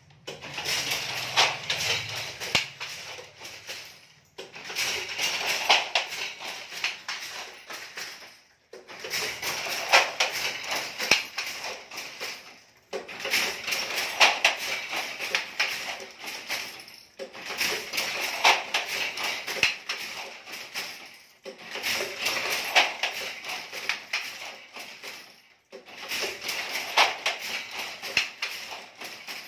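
Wooden handloom clattering: rapid clicks and knocks from the loom's frame and shuttle. They come in stretches of about four seconds, each broken by a brief silence.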